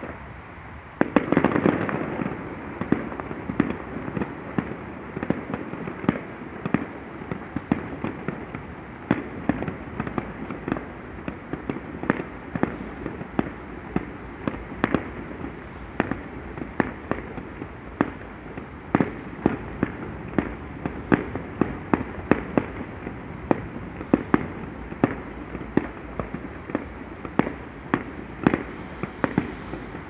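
Aerial fireworks display: a loud, dense cluster of bangs about a second in, then a continuous run of sharp bangs and pops, a few every second.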